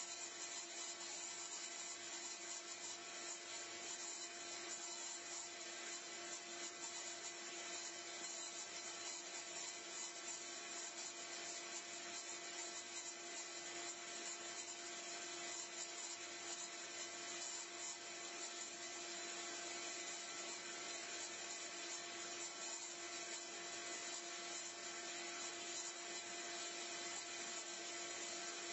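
Small electric motor running at a constant speed: a steady whine over a hiss, with no change in pitch or load.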